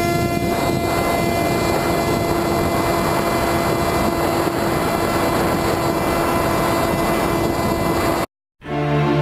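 Multiplex EasyStar's electric motor and propeller running at a steady pitch, with wind rushing over the onboard camera as the plane climbs. The sound cuts off abruptly about eight seconds in, and music starts.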